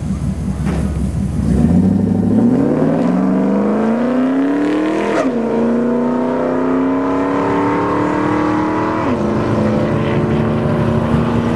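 Ford Lightning pickup's V8 launching hard down a drag strip. The engine note climbs steadily, drops sharply at an upshift about five seconds in and again near nine seconds, then keeps climbing under full throttle.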